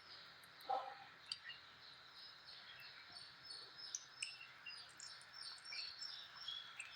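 Birds chirping over and over, faint, in many short falling notes, with a single soft knock about a second in.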